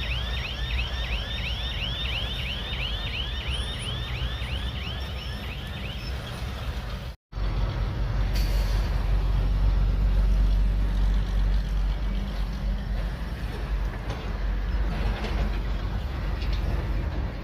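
Crawler bulldozer's diesel engine running under load, with a rhythmic high squeal about three times a second from the tracks that stops after about six seconds. After a sudden break about seven seconds in, the engine runs on louder.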